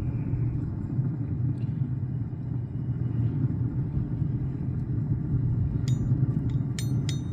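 A steady low rumble, with a few light clicks and taps near the end as a cotton basting mop is dipped into an aluminium foil pan of melted butter.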